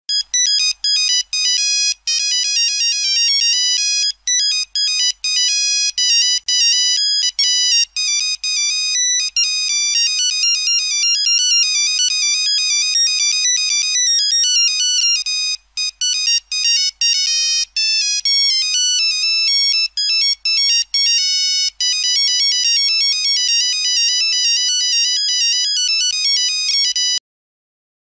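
Old phone ringtone: an electronic melody of short, high, beeping notes played continuously, cutting off abruptly shortly before the end.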